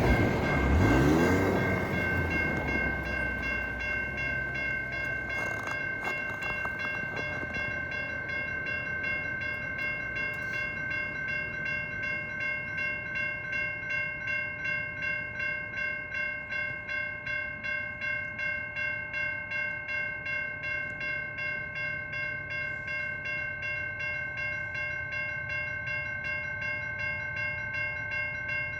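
Railroad crossing warning bell ringing steadily with a fast, even pulse over a low rumble. A road vehicle passes in the first couple of seconds.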